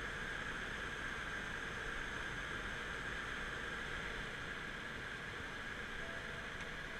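Steady hiss and hum inside the cabin of a stationary BMW F10 M5, with no rise or fall in pitch.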